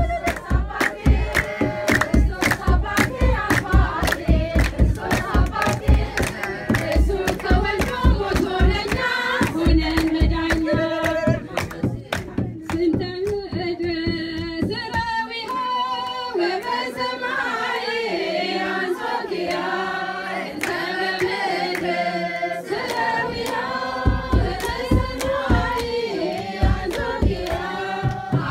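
Group of women singing an Ethiopian Orthodox hymn (mezmur) in unison, with hand-clapping and a kebero drum beating a steady rhythm. The drum and clapping drop out around the middle for several seconds, leaving the voices alone, then come back a few seconds before the end.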